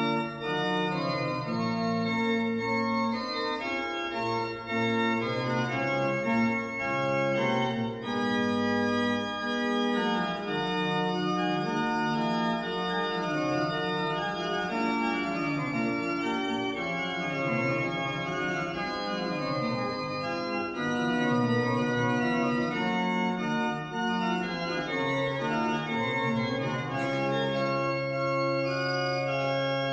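Baroque pipe organ by Johannes Hahn (1755) playing slow polyphonic music: several voices in long held notes moving against each other. A low bass note enters near the end and is held.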